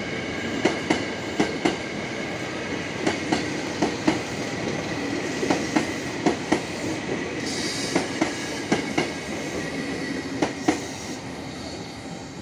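Ex-Tokyo Metro 6000-series electric commuter train running past at speed, its wheels clacking over the rail joints in close pairs as each bogie crosses, over a steady rolling rumble with a thin high whine. The sound eases off near the end as the train moves on.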